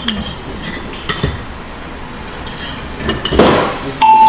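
Cutlery clinking against plates and dishes during a meal, in scattered light clinks. Near the end a loud, steady high tone begins.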